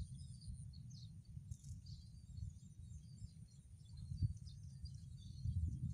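Many short, high bird chirps scattered throughout, over a low rumble of wind on the microphone.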